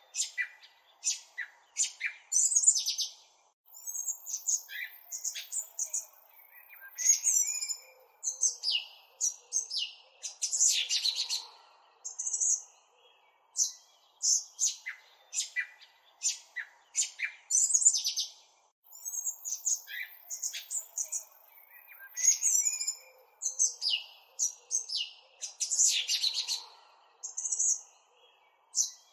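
Small birds chirping and trilling in quick, high bursts. The same stretch of birdsong repeats about every 15 seconds, as a looped recording does.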